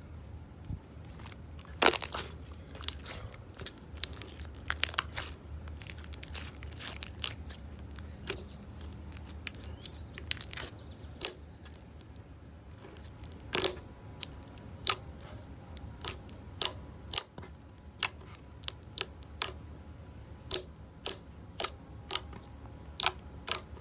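Thick, glossy slime being stretched, folded and poked by hand, giving off sharp bubble pops and sticky clicks, scattered at first and coming about once a second or faster in the second half.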